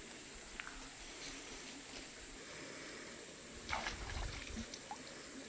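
Faint running water of a river stream, with a few small clicks and a brief louder splashing swish about four seconds in.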